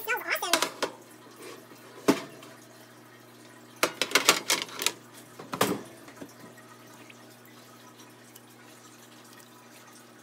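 Metal baking trays and a wire cooling rack clattering and knocking as they are handled and set down on a glass cooktop, with a quick run of knocks about four to five seconds in. After that only a faint steady hum.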